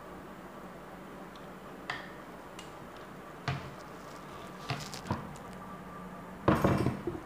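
A few light knocks, then a loud clattering clunk near the end as a Dutta sewing machine's cast-iron head is tipped back on its hinges and comes to rest on its stand.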